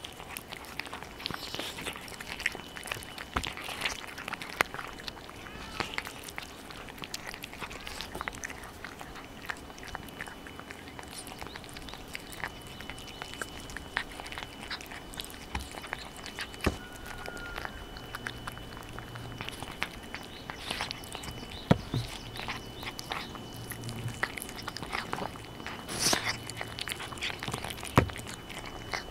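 Tabby cats eating flakes of boiled carp right beside a microphone: wet chewing, lapping and smacking with irregular small clicks of teeth and tongue. There are a few louder smacks near the end.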